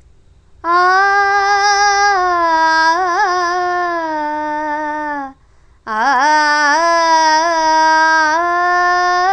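A high singing voice holds two long notes. The first sinks slightly in pitch before it stops about five seconds in; after a short break, the second starts with an upward scoop and is held to the end.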